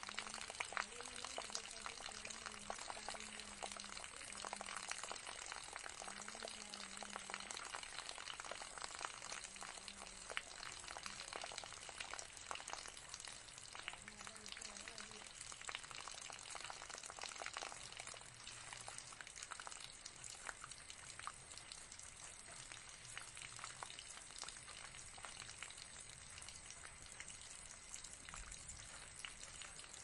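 Small tabletop pot fountain: thin streams of water trickling from a tilted jug into a bowl and splashing into the basin below, a steady patter of fine splashes.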